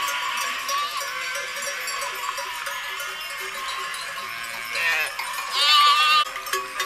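A large flock of sheep bleating, many voices overlapping, with one loud wavering bleat near the end.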